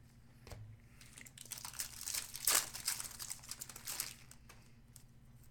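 Card-pack wrapper crinkling and tearing as a pack of trading cards is opened, with many small crackles, thickest in the middle couple of seconds.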